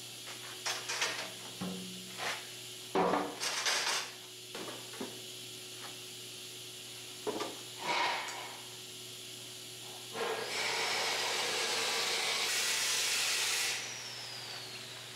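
Metal press-frame parts knocking and clanking as they are handled: a cluster of sharp knocks in the first few seconds and a couple more about halfway. Near the end comes a steady hiss lasting about three seconds, then it stops.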